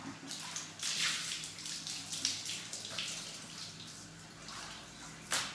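Water from a garden hose splashing onto a balcony floor, heaviest in the first few seconds, with one sharp knock near the end.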